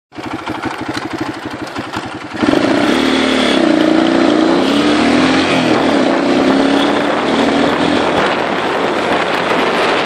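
Dirt bike engine running with a rapid firing pulse at first, then about two and a half seconds in it gets much louder and its pitch rises and falls with the throttle as the bike rides on. A steady rushing noise takes over toward the end.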